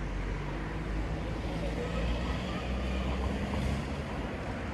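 Low engine rumble of a passing motor vehicle, swelling over the first two seconds and easing off near the end.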